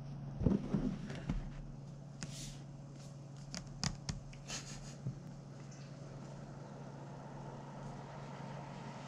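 A small white cardboard product box being set on a wooden table and handled: scattered light taps, scrapes and fingers rubbing on the cardboard, over a faint steady low hum.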